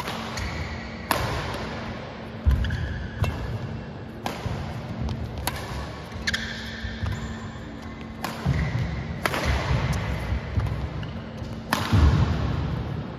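Badminton rally: sharp racket strikes on the shuttlecock about a second apart, with heavier thuds of feet landing on the court and short shoe squeaks between shots.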